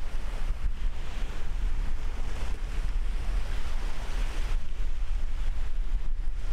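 Wind buffeting the microphone in a heavy low rumble, over an even rush of small waves washing on the shore that eases about four and a half seconds in.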